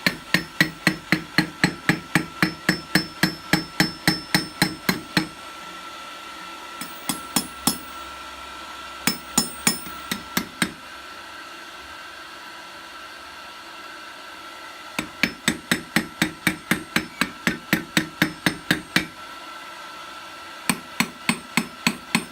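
Blacksmith's hand hammer striking hot rebar steel in quick runs of about four blows a second, broken by short pauses. The blows draw out and reshape the top of the forging.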